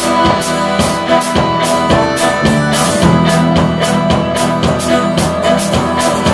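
Live band playing an instrumental passage on accordion, acoustic and electric guitars, fiddle and drum kit, with a steady drumbeat.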